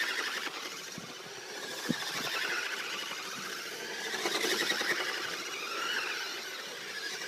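Remote-control toy truck's small electric motor and gears whirring, the pitch shifting up and down as it speeds up and slows. There is a single click about two seconds in.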